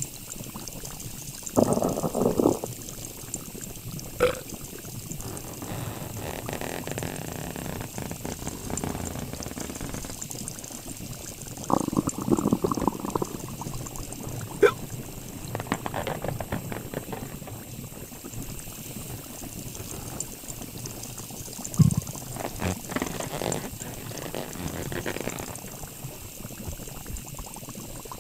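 Fizzy, carbonated liquid bubbling and gurgling steadily, with a few louder gurgles near the start, around the middle and near the end.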